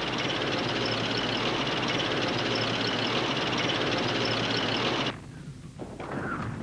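A vehicle engine running with a steady mechanical noise, cut off abruptly about five seconds in. A quieter, different noise follows near the end.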